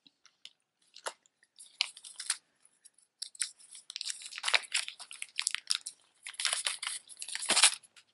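Costume jewelry clinking and rattling as a hand rummages through a box of necklaces and chains, a few scattered clicks at first, then dense crunchy clatter, with the loudest clatter near the end.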